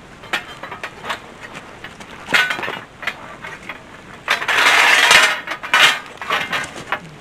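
Steel fence posts and a tubular post driver clinking and clanking together as they are handled, with a longer rasping metal scrape about halfway through.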